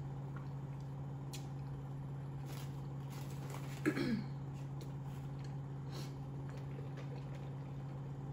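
Quiet eating sounds: faint chewing and mouth noises over a steady low hum, with one short sound from the throat, falling in pitch, about four seconds in.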